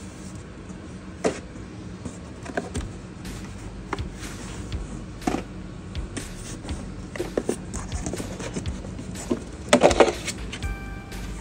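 Cardboard and plastic packaging being handled: scattered taps, knocks and rustles as boxes are shifted, with a burst of plastic crinkling about ten seconds in as a hand grabs the clear plastic cover around the computer.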